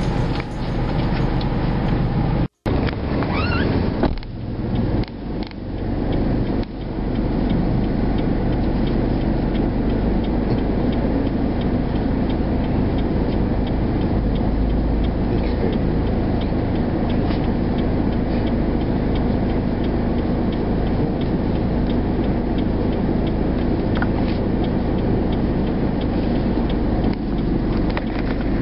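Steady vehicle noise heard from inside a van's cab: the engine running and street traffic around it. There is a brief dropout about two and a half seconds in.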